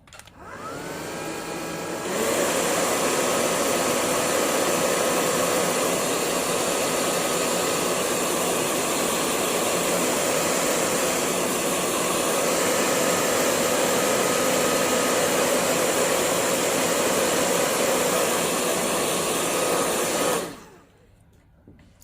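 Electric hair dryer switched on, its motor whining up to speed over the first couple of seconds, then blowing steadily before it is switched off shortly before the end. It is drying the wet colour wash on a Chinese painting.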